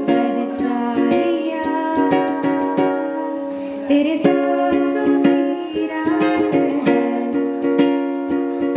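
Ukulele strummed in a steady rhythm, with a woman singing along into a microphone. The strumming thins out briefly a little past the middle, then picks up again with a fresh strum.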